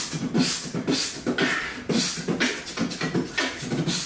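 Beatboxing: a person making a fast, steady beat with the mouth, with kick-drum thumps, snare clicks and hissing hi-hats.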